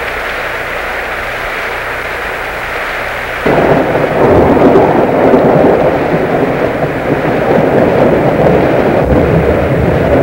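A steady hiss with a faint low hum, then a loud, dense rushing rumble that starts suddenly about three and a half seconds in and keeps on.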